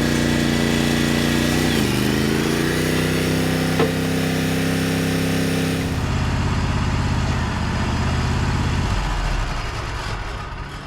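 Wood-Mizer portable sawmill running, its engine holding a steady pitch that dips briefly about two seconds in and then recovers. A higher hiss over the engine stops about six seconds in, and the engine sound fades near the end.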